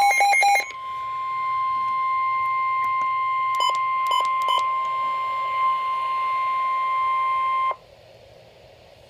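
Weather-alert broadcast: a brief burst of rapid beeping, then the single steady 1050 Hz warning alarm tone of NOAA Weather Radio, held for about seven seconds and then cut off sharply. Three short beeps sound over the tone about halfway through, and faint hiss follows the tone.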